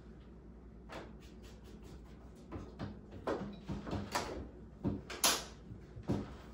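Kitchen utensils tapping and clinking against a countertop and a stainless mixing bowl: an irregular string of short sharp knocks, sparse at first and closer together later, the loudest about five seconds in.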